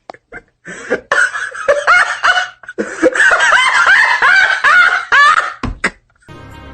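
A person laughing hard in a long run of rapid, high-pitched bursts. A dull low thump follows near the end, and music starts just after it.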